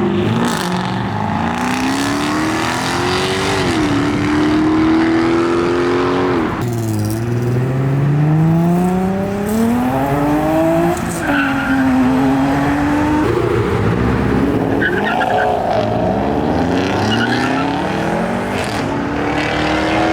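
Car engines accelerating hard away, the pitch climbing through each gear and dropping sharply at each upshift, several pulls in a row.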